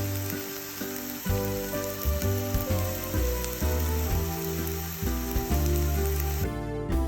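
Enoki mushrooms sizzling as they fry in butter in a pan, with background music playing. The sizzling stops suddenly near the end.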